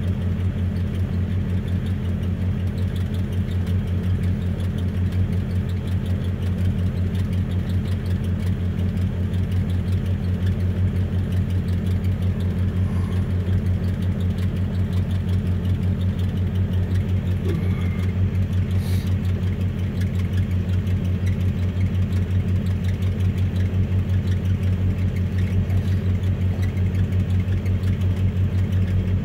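Vehicle engine idling steadily while warming up after a cold winter start, heard from inside the cab with an even, unchanging low hum.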